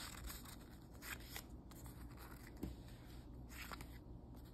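Glossy planner sticker sheets being handled and shuffled: faint papery rustling with a few light, sharp flicks and taps.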